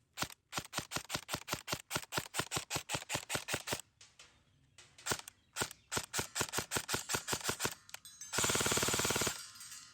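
Umarex MP7 airsoft replica firing: a fast string of sharp shots, a pause of about a second, a second string, then a continuous full-auto burst of about a second near the end.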